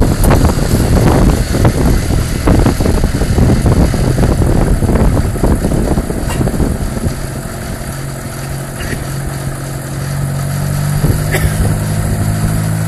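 Autogyro's rear-mounted engine turning its pusher propeller. It runs loud and rough at first, then settles to a steadier, quieter idle hum about six seconds in.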